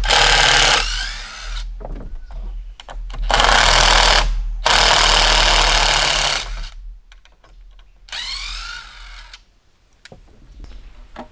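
Cordless power driver driving screws into a board, in several bursts of a second or two, the last a short spin-up and wind-down.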